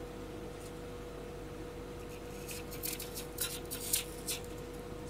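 A knife cutting an apple held in the hand: about halfway through, a quick run of short, crisp scraping cuts. A steady low hum runs underneath.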